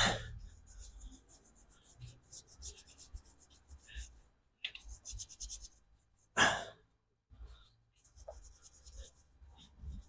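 Brush scrubbing a grimy Cummins engine block in runs of quick strokes, with a short breathy hiss about six seconds in.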